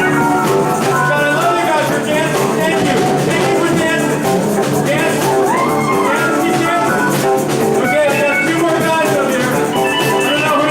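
Band music: an upbeat dance tune with drums and a melody line, playing steadily and loudly throughout.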